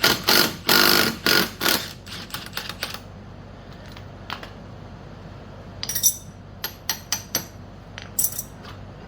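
Socket ratchet clicking through several quick strokes as the scooter's front axle nut is worked loose, followed by scattered light metal clinks of tools and parts.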